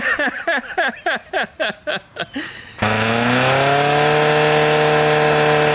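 Air-cooled VW engine of a homebuilt ATV: a run of short uneven pulses, then, about three seconds in, a steady drone that rises briefly in pitch and holds.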